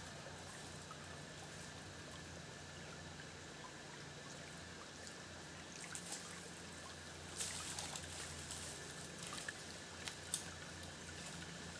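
Crackling and rustling of leaves and dry twigs as a person shifts and moves through undergrowth, starting about halfway in, with a sharp twig snap near the end, over a faint steady outdoor hiss.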